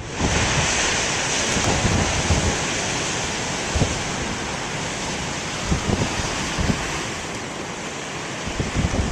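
Big storm waves breaking and surf washing in, with gusty wind buffeting the microphone. The surge swells just after the start and slowly eases off.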